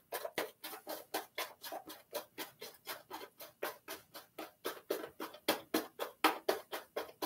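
Safety razor scraping through lathered stubble in quick short strokes, about five a second, on a cross-grain pass.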